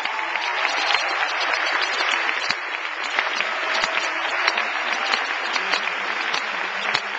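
Large audience applauding steadily, dense clapping with single sharp claps standing out.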